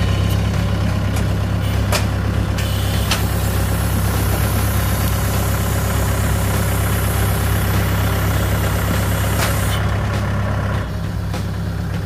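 Mahindra compact tractor's diesel engine running steadily as the tractor drives with a load on its front loader, with a few light clicks over it. The engine gets a little quieter near the end.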